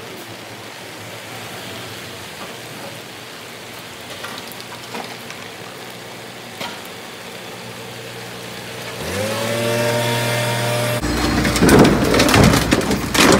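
Steady heavy rain shower falling on pavement. About nine seconds in, a garbage truck's engine speeds up with a rising hum that then holds steady, and about two seconds later loud clattering and knocks start from the truck's rear loader.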